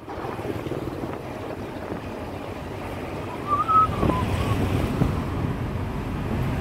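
Road noise from a moving open tuk tuk: engine running and wind buffeting the microphone, with a short wavering high squeal about halfway through.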